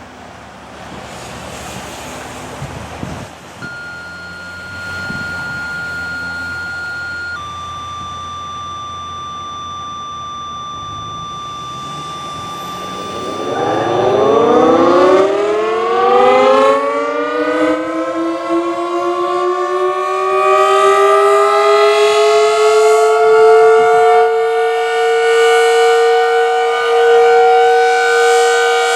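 Decot Red Arrow Model 12 tornado siren starting its steady Alert signal: about halfway in it winds up, rising in pitch over several seconds, then holds a steady note at full speed. Before it starts, wind noise and two steady electronic tones, one after the other.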